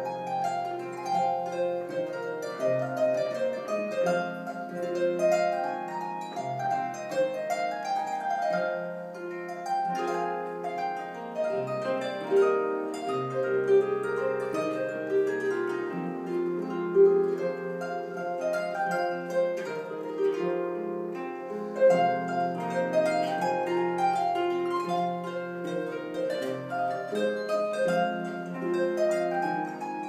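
Solo harp playing an Irish tune: a plucked melody in the middle range over lower bass notes, each note ringing on.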